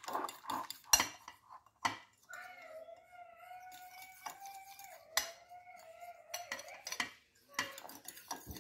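Metal fork whisking a flour-and-water batter in a glass bowl: rapid clinks of the fork against the glass, with sharp knocks about one and two seconds in. In the middle the clinking stops for a few seconds while a steady held tone sounds, then the clinking resumes near the end.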